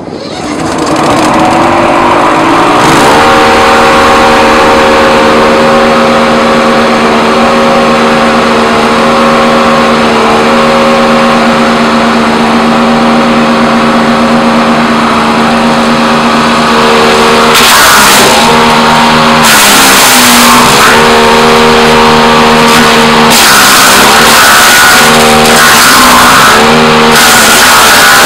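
Towable wood chipper's 18 hp engine, just electric-started, speeding up to a steady run over the first three seconds. From about 17 seconds in a thick branch is fed in and the chipper chews it in loud cracking bursts, the engine dipping in speed under each bite.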